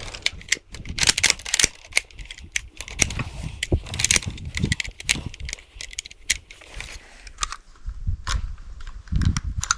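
Irregular metallic clicks and clacks of an M95M straight-pull rifle's action and magazine being worked by hand. The cartridges are jamming and will not feed up from the magazine.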